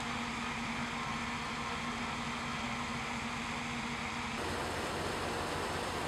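1944 Ward LaFrance M1A1 wrecker's Continental 22R engine running steadily, with a low steady hum. About four seconds in the sound changes abruptly to a lower, rougher rumble.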